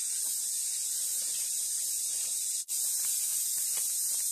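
A steady high hiss, with a faint patter of small dry seeds and then salt falling onto chopped chili mash in a bowl. The hiss cuts out briefly about two-thirds of the way through.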